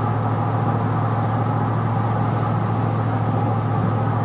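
GMC Sierra pickup's V8 engine and exhaust running with a steady low hum at an unchanging pitch while cruising at highway speed, over an even road-noise hiss.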